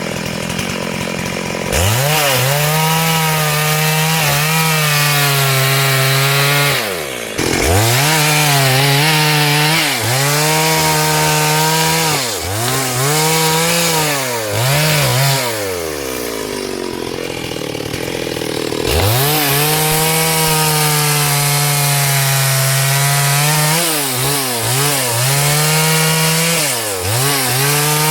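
Chainsaw revving up to full speed and cutting through wood. Its pitch dips and recovers several times as the chain bites into the log. Midway it eases off to lower revs for a few seconds, then opens up and cuts again.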